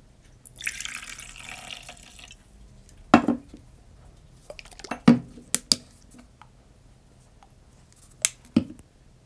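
Cold brew coffee poured from a plastic pitcher into a glass mug for about two seconds, followed by several sharp knocks and clicks as the pitcher and a creamer bottle are handled and set down on the countertop.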